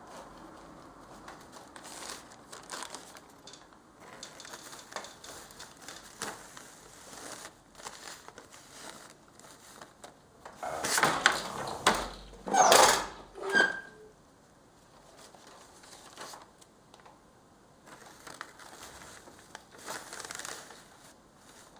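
Paper crinkling and rustling as paper is worked into the weave on a loom. A cluster of much louder crunches comes a little past the middle.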